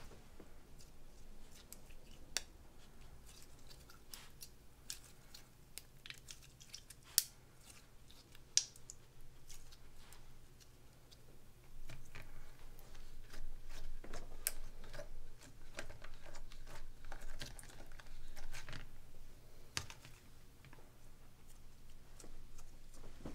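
Slime being kneaded and stretched by hand, with sticky clicks, pops and squelches. It grows busier and louder about halfway through.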